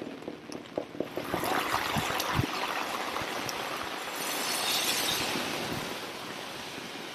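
Rushing water, building about a second in and swelling loudest for a couple of seconds past the middle before easing, with a couple of low thumps about two seconds in.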